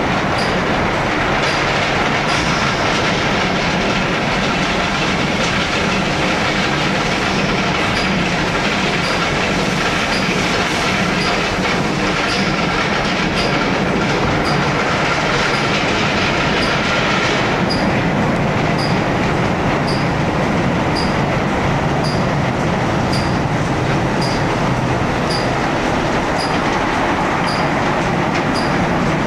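Automatic car wash running: big rotating brushes and water spray working over a car, a loud steady rushing and churning noise with a faint regular tick about once a second. About two-thirds of the way through, the higher hiss eases off.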